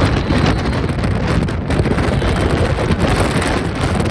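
Loud, steady rush of a jet airliner's engines, with strong wind buffeting the microphone.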